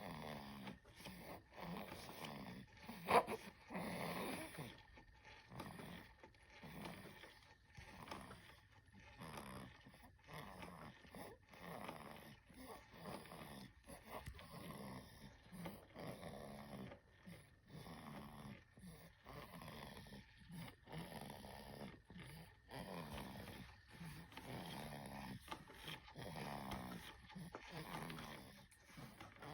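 A sleeping baby snoring in short, uneven breaths about once a second, with one sharper, louder snore about three seconds in.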